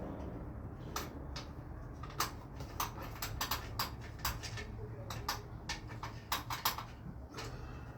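Irregular small clicks and taps of hand tools and bicycle handlebar parts being handled, over a steady low hum.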